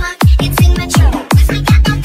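Electronic dance music with a strong, fast kick drum on every beat, about two and a half beats a second, under synth chords.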